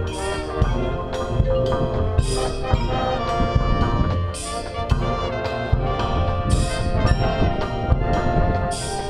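Marching band playing: the brass section holds chords over the drum line, with a cymbal crash about every two seconds.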